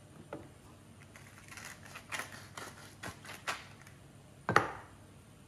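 Wooden pepper mill being twisted by hand, a run of short grinding crackles, then a single louder knock about four and a half seconds in.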